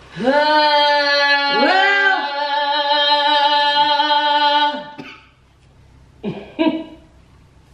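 A woman singing unaccompanied, holding one long loud note that scoops up at the start and swells again about a second and a half in, then breaks off about five seconds in. Two short vocal sounds follow about a second later.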